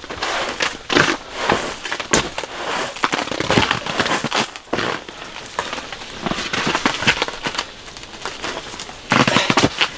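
Irregular crackling and crinkling with many sharp clicks, coming in clusters, loudest about a second in, around the middle and again near the end.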